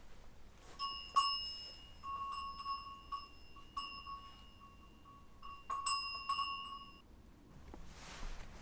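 A small bell rung again and again in an uneven series of strokes, each left to ring on with a clear, high, steady tone. It eases off briefly, then rings in a quicker flurry before stopping about seven seconds in.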